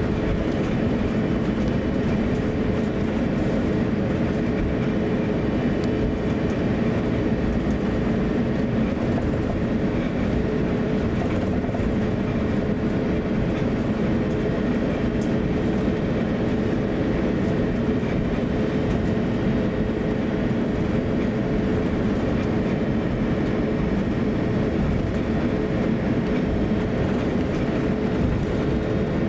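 Cabin noise inside an Airbus A350-900 airliner taxiing: a steady rumble of the Rolls-Royce Trent XWB engines at low taxi thrust and the rolling gear, with a steady mid-pitched hum above it.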